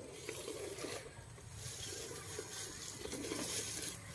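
Footsteps and rustling through dry grass and weeds, with uneven swishing and crunching.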